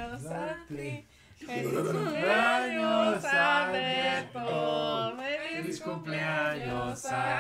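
A group of people singing a birthday song together without accompaniment, in long held notes.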